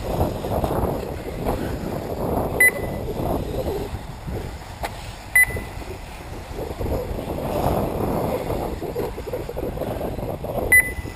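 Short, single-pitch electronic beeps from the race's lap-timing system, three of them spaced a few seconds apart, each as a buggy crosses the timing loop. Under them runs a steady, rising-and-falling whir of 1/8-scale electric RC buggies racing on the track.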